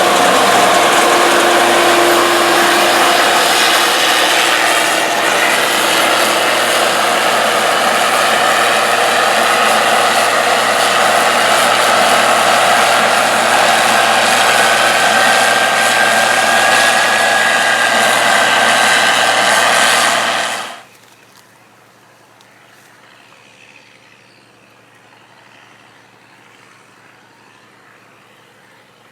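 Heavy harvest machinery running steadily under load, a loud dense engine and mechanical din, which drops suddenly to a faint distant hum about 21 seconds in.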